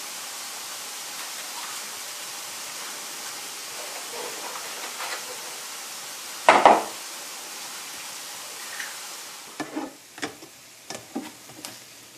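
Eggs being cracked on the rim of a mixing bowl, one of them a single loud sharp crack about six and a half seconds in, over a steady sizzle from a skillet of ham, onions and bell peppers. The sizzle drops away after about nine seconds, leaving several lighter taps and clicks near the end.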